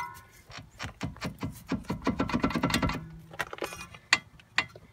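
A car's front steering knuckle and brake rotor being shaken by hand give a run of metallic clicks and rattles, with one sharper knock near the end. The looseness is taken for a worn tie rod end.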